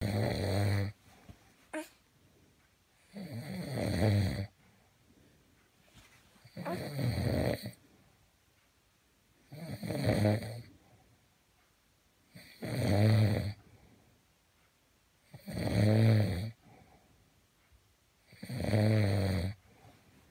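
An adult man snoring in deep sleep: seven drawn-in snores, each about a second long, coming regularly about every three seconds with quiet breathing gaps between.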